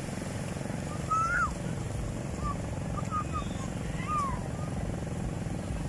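Seaside ambience: a steady low rumble, with short high distant calls from people on the beach about one second in, around three seconds and again at four seconds.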